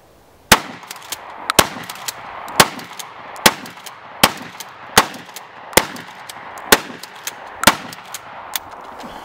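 A Norinco HP9 12-gauge pump-action shotgun, a Remington 870 clone, fires about nine shots in quick succession, roughly one a second, with the pump action clacking between shots. It then runs empty, and lighter clicks of the action come near the end.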